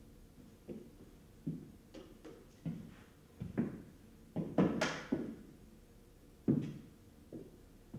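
A string of irregular knocks and thuds, about a dozen, each with a short ringing tail; the loudest come in a quick cluster about four and a half seconds in and again near six and a half seconds.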